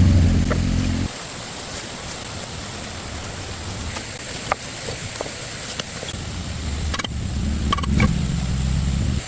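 A low engine rumble, heard for about the first second, then dropping away and returning from about six seconds in, with a few scattered clicks and knocks in between.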